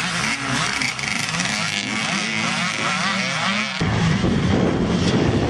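Motocross bike engines revving, their pitch rising and falling again and again as riders work the track. About four seconds in the sound switches abruptly to a louder, rougher rumble.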